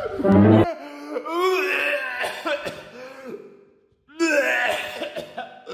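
Wordless cartoon voice cries that bend up and down in pitch, opening with a brief loud low sound, fading out about three and a half seconds in and starting again about a second later.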